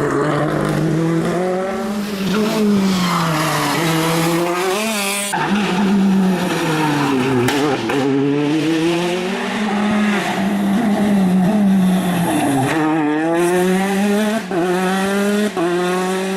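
Rally car engine heard from inside the car at full attack, its revs climbing and dropping again and again through gear changes and braking. The sound changes abruptly about five seconds in.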